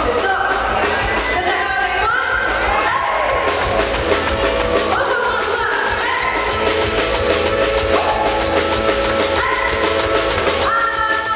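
A woman singing long held notes into a microphone with a live band: electric bass, electric guitar and drum kit, amplified through a PA.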